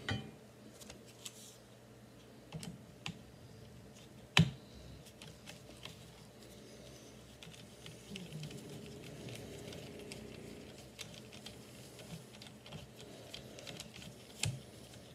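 Light, scattered metal clicks and taps of a screwdriver working the slotted screw under the front sight hood of a Henry lever-action .22 rifle, with two louder knocks, one about four seconds in and one near the end.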